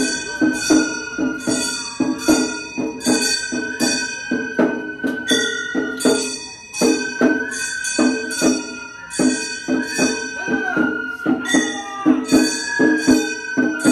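Gion bayashi festival music from a float: small hand-held brass gongs struck in a steady clanging rhythm, about three strikes a second, under a high bamboo flute playing long, wavering, sliding notes.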